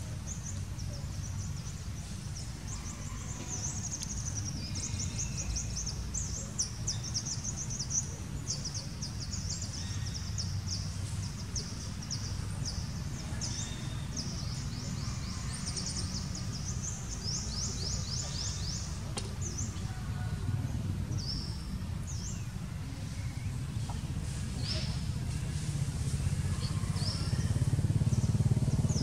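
Outdoor ambience: rapid, high-pitched chirping trills over a steady low rumble. The chirping is dense for the first twenty seconds or so and then comes in scattered bursts, while the rumble swells near the end.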